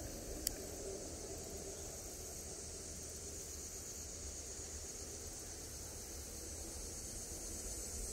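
Steady outdoor ambience: a continuous high drone of insects over a low wind rumble on the microphone, with one faint click about half a second in.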